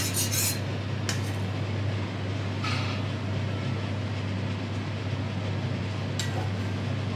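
Steady low mechanical hum, with a few short hissing scrapes at about one second, near three seconds and after six seconds.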